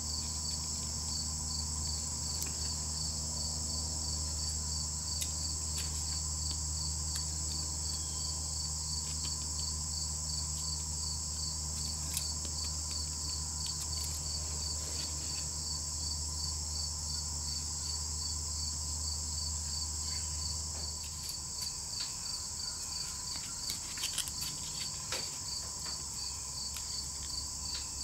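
Insects chirping in a steady, high, evenly pulsing chorus, with a low hum underneath that drops away about 21 seconds in. A few faint clicks come from bark being handled.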